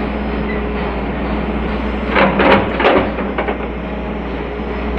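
Hitachi excavator's diesel engine running at a steady drone, with a few brief sharp sounds about two to three seconds in.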